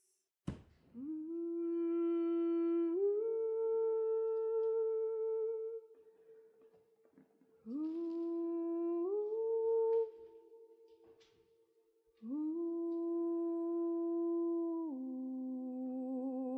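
A voice humming a slow melody in long held notes, each sliding up into its pitch, in three phrases with short pauses between; the last note drops lower and wavers. A single sharp clack about half a second in.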